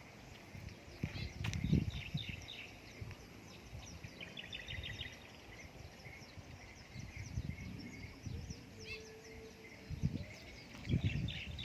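Outdoor ambience: birds chirping and trilling, with irregular low thumps and rumbles that grow louder near the end.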